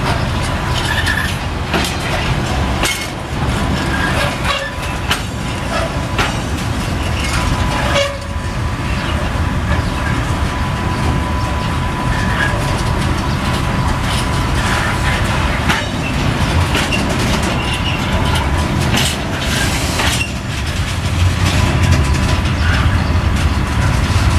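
Freight train of high-sided sliding-wall wagons rolling past at close range: a steady low rumble of wheels on rail, with irregular clicks and knocks as the wheels cross rail joints and a faint steady high whine. The rumble grows louder near the end.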